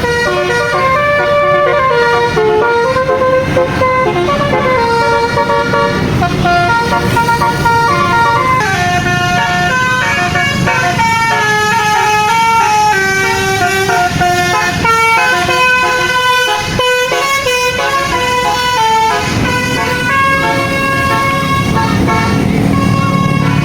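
Basuri telolet horn on a tour bus playing a melody, its notes stepping up and down in quick succession with a brief break about two-thirds through. A bus engine runs underneath, with its low rumble growing near the end.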